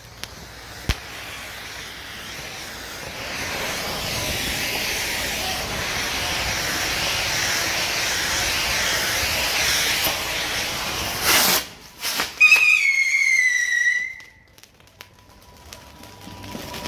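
Fireworks on a torito, a bull-shaped frame, spraying sparks with a steady hiss that swells after a few seconds. About eleven seconds in comes a loud bang, then a falling whistle lasting about a second and a half, after which the hissing stops.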